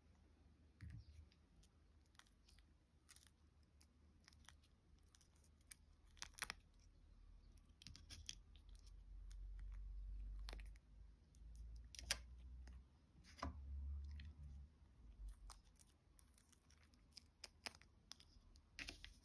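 Cast pieces being popped out of flexible silicone molds by hand: soft, scattered clicks, crackles and peeling sounds as the silicone is bent back and releases, with low rumbles from handling the molds.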